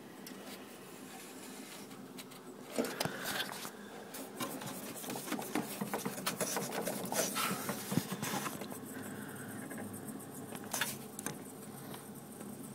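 Irregular small clicks, scrapes and rubs at close range, the loudest cluster coming in the middle, over a faint steady background.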